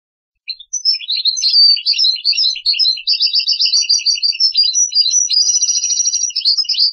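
European goldfinch (akdal) singing a fast, unbroken song of quick twittering chirps with buzzy trills near the end, in the song phrase known as al-kharja al-'askari ('the military phrase'). The song starts about half a second in and cuts off suddenly at the end.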